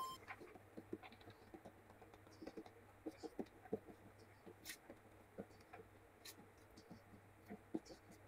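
Faint scattered ticks and light scraping: soaked split chickpeas (chana dal) sliding out of a plastic tub and dropping into a large aluminium pot of water, with a hand scraping the last grains from the tub.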